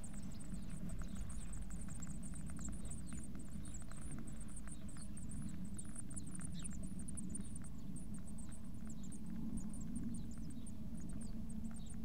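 Blue tit nestlings begging with rapid, very high-pitched cheeping inside the nest box as a parent feeds them. Faint scratching and rustling in the nest material sits over a steady low hum.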